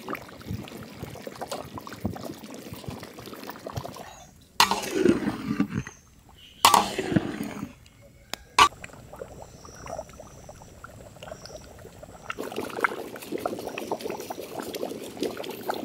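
Thick mutton curry bubbling and sloshing in a large iron kadai as it is stirred with a long ladle. There are two louder sloshes about five and seven seconds in, and a sharp knock shortly after.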